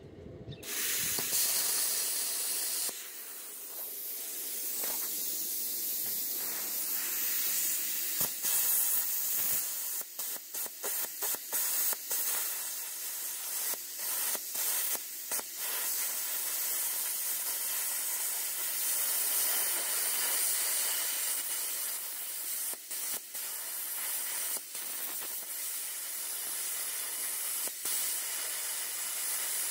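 Plasma cutter cutting sheet steel: the steady hiss of the air-plasma arc, which starts about half a second in and drops out for an instant several times as the cut goes on.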